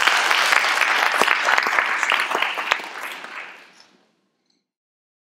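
A small audience applauding, many hands clapping together; the clapping dies away about four seconds in.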